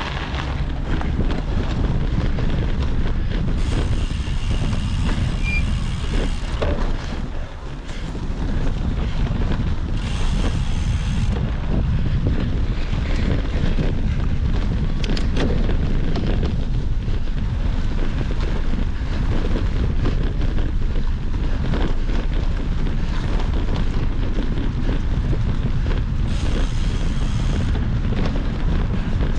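Wind buffeting the microphone, a steady low rumble throughout, with scattered knocks and three brief bursts of higher hiss.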